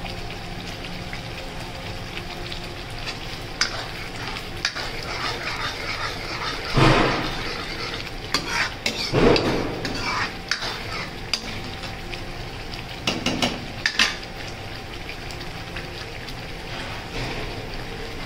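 Metal spoon stirring and scraping thick masala paste in a metal kadai, with clinks and knocks against the pan bunched in the middle, over the steady sizzle of the masala frying.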